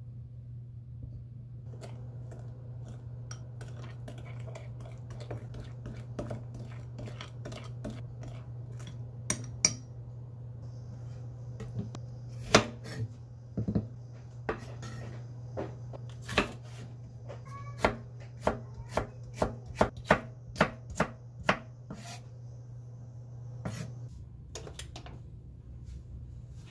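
Kitchen knife chopping a green chili pepper on a wooden cutting board: a run of sharp knocks, about one or two a second, loudest in the second half. Before that, light clinks of a metal spoon stirring sauce in a small glass bowl, over a steady low hum.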